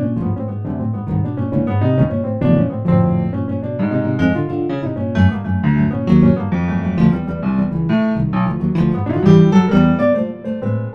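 Piano music: a steady stream of quick notes with a bass line underneath.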